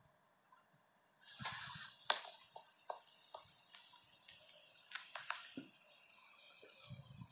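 Quiet room tone with a steady high hiss. From about a second in come faint rustling and a scattered run of small, sharp clicks.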